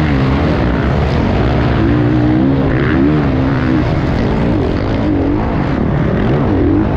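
Enduro racing motorcycle engine heard close up from the bike's onboard camera, its pitch rising and falling again and again as the rider works the throttle at race pace.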